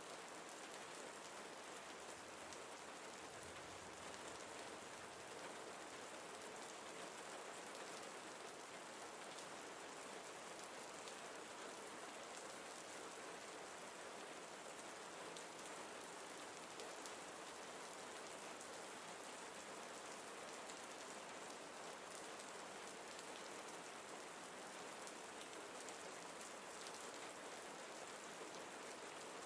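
Steady, faint rain falling, an even hiss with scattered small drop ticks.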